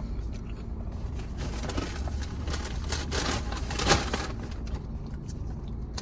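Crinkling and scraping of takeout food packaging, a small plastic queso cup and chips being handled, in a cluster of crackles from about two and a half to four seconds in, loudest near four seconds. A steady low hum runs underneath inside the car.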